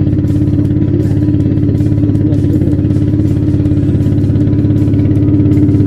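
Small motorboat's engine running steadily under way, with a fast even chugging pulse; it grows a little louder near the end.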